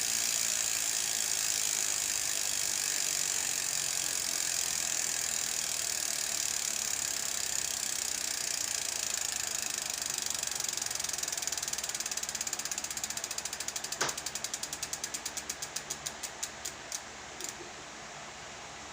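Freehub ratchet of an Aeroic 8.7 AM mountain bike hub buzzing as the wheel freewheels. The buzz slows into separate, ever wider-spaced clicks as the wheel spins down, and stops shortly before the end. There is one sharp knock about two thirds of the way through.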